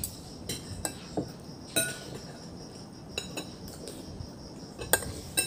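Cutlery clinking and scraping against a plate during a meal: scattered light clinks, about eight in all, with sharper ones near the middle and near the end.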